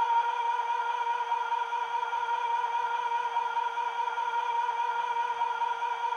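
A Bachmann Class 37 model's DCC sound decoder plays the Class 37 diesel settled at idle after its long cold start, with a steady high turbocharger whistle over the engine. It comes through the model's small onboard speakers.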